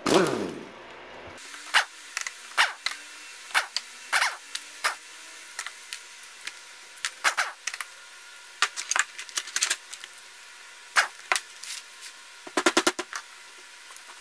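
Air impact wrench briefly spinning out bolts on the intake end of a 1981 Evinrude 25 hp outboard powerhead, its pitch falling as it winds down. Then a string of sharp metallic clinks and knocks, with a quick rattle of them near the end, as the loosened bolts and parts are handled and set down.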